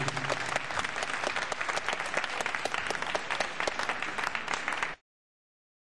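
Audience applauding, a dense patter of many hands clapping, which cuts off abruptly about five seconds in.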